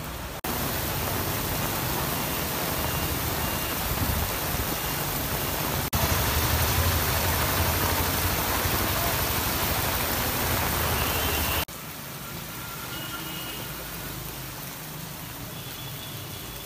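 Heavy cyclone rain: a steady downpour with water sheeting off a roof edge, in three shots that cut abruptly about half a second, six and nearly twelve seconds in, the middle one loudest. The last part is softer rain falling on floodwater.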